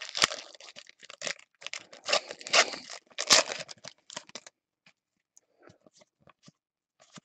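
Trading card pack wrapper being torn open, with crinkling and rustling for about four seconds, then a few faint light clicks.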